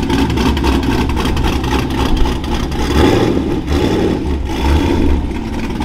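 Chevrolet Camaro's engine idling with a loud exhaust rumble, swelling briefly a couple of times.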